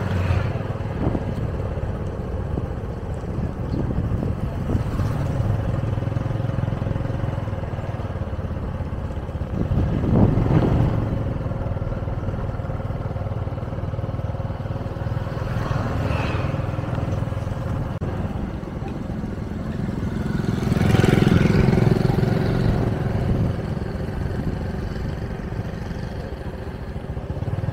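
Motorcycle and street traffic noise: a steady engine rumble that swells louder twice, about ten seconds in and again around twenty-one seconds.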